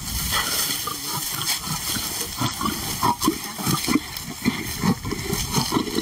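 Lions growling and snarling in a run of short, rough growls: a lioness and a male lion quarrelling as he keeps her off the meat.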